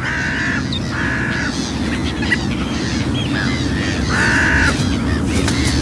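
Harsh cawing bird calls, several in a row, each about half a second long, over a steady low background noise.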